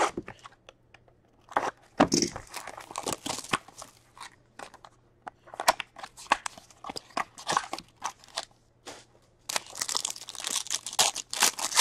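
Plastic shrink-wrap on a hockey card hobby box crackling as it is slit and peeled off, and the cardboard box being opened with scattered clicks and rustles. Near the end comes a denser crinkling as a foil card pack is torn open.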